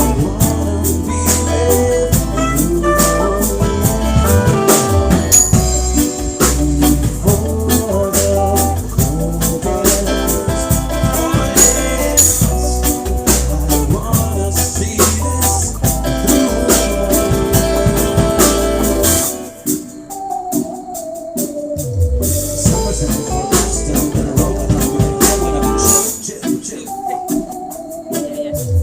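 Live acoustic band playing a song with a steady beat and bass. The bass and beat drop out briefly about two-thirds of the way through and again near the end, leaving the higher instruments.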